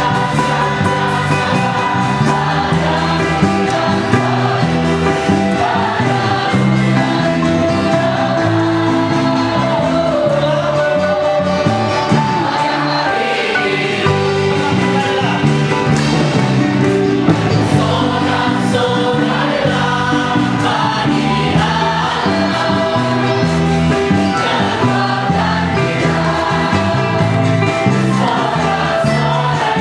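Live gospel praise song sung by a group with band accompaniment, the voices in unison over a steady beat.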